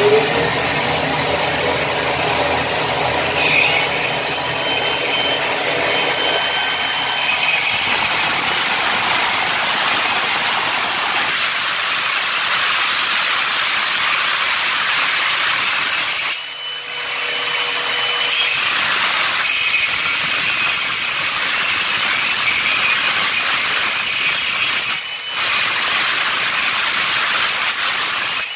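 A hand-held power tool with a vacuum hose attached runs steadily at the bathroom floor, easing off for a moment about halfway through and again briefly near the end.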